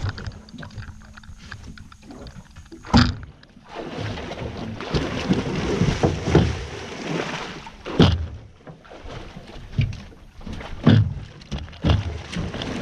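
An alligator on a line thrashing at the water's surface beside a boat, throwing up heavy splashes. One sharp loud splash comes about three seconds in, then a few seconds of continuous churning water, then several more sharp splashes and knocks near the end.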